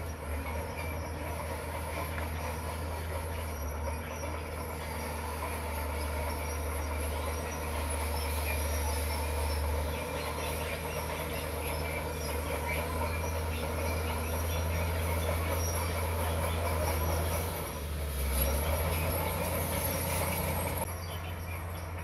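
Komatsu bulldozer's diesel engine running with a steady low drone while its steel crawler tracks clank and squeal as it pushes stone.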